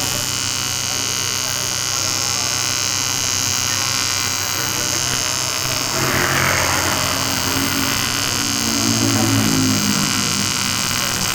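AC TIG (argon) welding arc on aluminium, buzzing steadily, as an engine oil pan is welded to join it.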